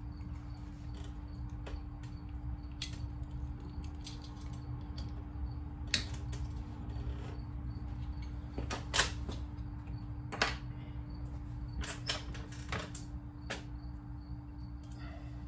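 Irregular sharp clicks and knocks of wire connectors and cables being handled and plugged in on a battery pack rack, the loudest about nine seconds in, over a steady low hum.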